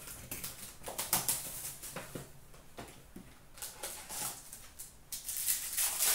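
Hands opening a cardboard trading-card box and pulling the cards out: scattered clicks and taps, then dense rustling that is loudest near the end.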